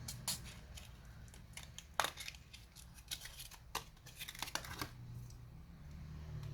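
A handful of light, irregular clicks and taps from hands handling the opened laptop's internals near its memory slot, the sharpest about two seconds in.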